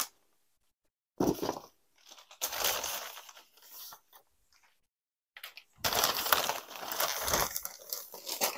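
Bubble-wrap packaging and a paper shopping bag being handled, crinkling and rustling in three bursts, the longest near the end.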